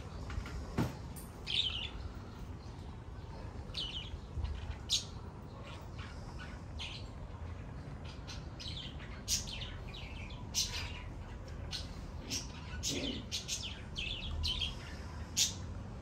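Caged songbirds singing: short, sharp downward-sweeping chirps, scattered at first and coming thicker and faster from about halfway on.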